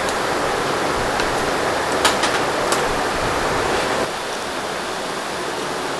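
Steady rushing noise of a busy kitchen, with a few light clinks of metal tongs and bowls. The noise drops a little about four seconds in.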